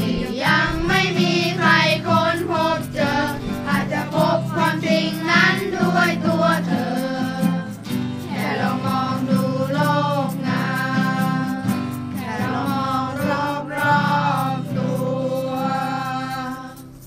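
A song sung by a group of voices together, children among them, over a steady rhythmic accompaniment. It drops away sharply at the very end.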